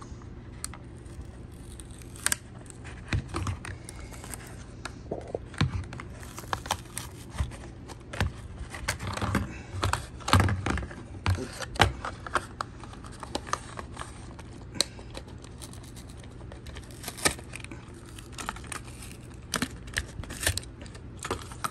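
A cardboard-and-plastic blister pack being torn and pried open by hand: irregular crinkling, tearing, scraping and sharp plastic clicks, loudest about halfway through.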